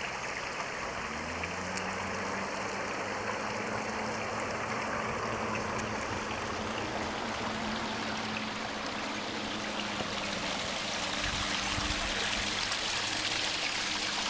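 Small creek trickling over rocks and fallen branches: a steady rush of running water that grows a little louder near the end.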